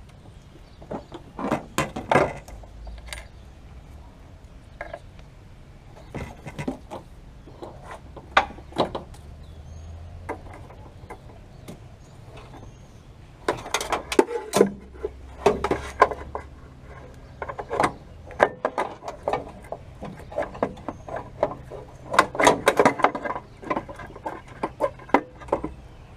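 Scattered clicks, clanks and knocks of hand tools and metal parts as a part is bolted in under the dashboard, with quick runs of clicking about half way through and again near the end.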